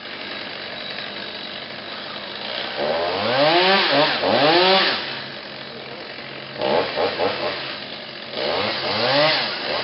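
Chainsaw running at idle and revved up about four times, its pitch rising and falling with each rev.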